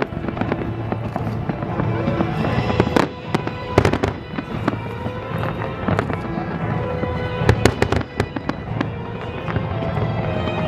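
Fireworks going off in quick succession, a steady stream of sharp bangs and cracks with denser volleys about three seconds in and again near the eight-second mark, over music playing underneath.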